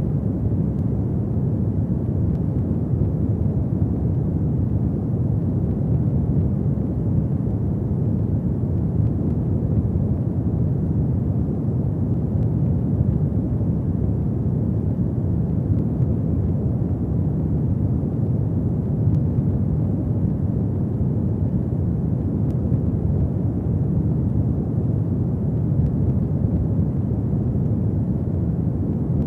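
Fireplace fire burning: a steady low rumble of flames with a few faint crackles.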